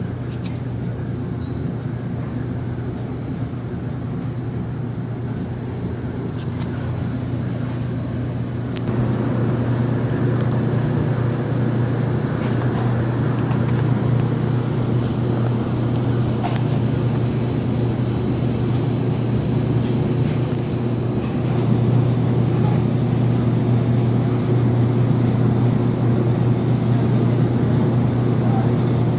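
A steady low mechanical hum, which gets louder about nine seconds in.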